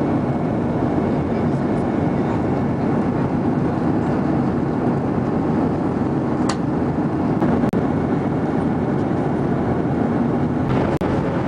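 Cabin noise of a Boeing 737 airliner in cruise flight: the steady, even rush of the jet engines and airflow heard from a window seat.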